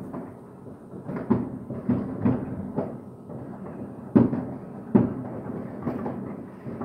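New Year's Eve fireworks going off outside in an irregular series of bangs, heard from indoors through a glass door. The two loudest come about four and five seconds in.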